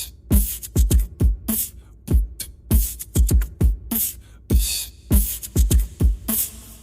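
Electronic music with a steady drum-machine beat: deep kick-drum thumps alternating with sharp snare and hi-hat hits, several beats a second.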